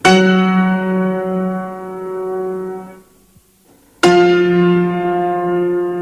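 Song outro on piano: two full chords, struck about four seconds apart, each left to ring and slowly fade, with a moment of near silence before the second.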